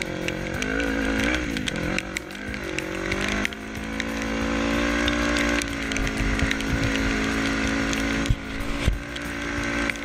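Engine of a Yamaha Raptor 350 quad with a swapped-in Honda CB500 engine, revving up and down for the first few seconds, then held at a steady higher speed under way, dropping briefly near the end.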